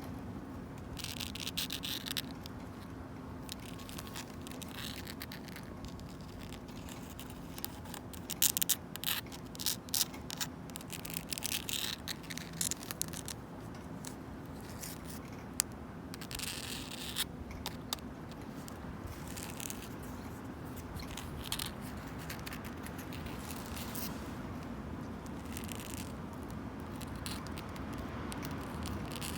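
Long natural fingernails scratching and clawing at a wooden bench in irregular bursts, with sharp clicks among the scrapes, over a steady low background noise.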